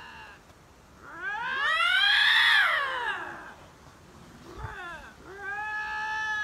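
Lynx yowling: one long drawn-out call that rises and then falls in pitch, a short call, and a second call near the end that holds a steady pitch.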